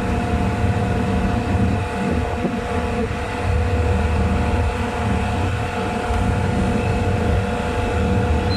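Chiller plant machinery running: a steady mechanical drone with a low rumble and a constant whine.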